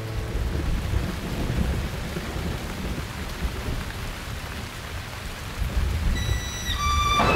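Rain-and-thunder sound effect in a dance music track: steady rain hiss over a low rolling rumble. Near the end a few high, thin tones stepping downward come in, leading back into the strings.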